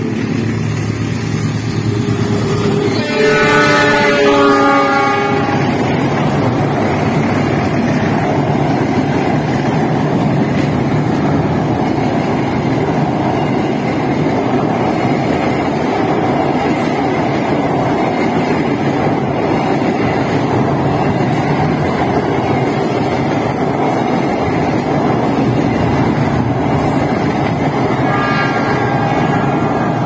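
KA Ambarawa Ekspres passenger train passing. Its diesel locomotive's horn sounds about three seconds in, the pitch falling as it goes by, then the coaches make a steady rumble rolling over a steel girder bridge. The horn sounds again near the end, a warning to fishermen standing on the bridge.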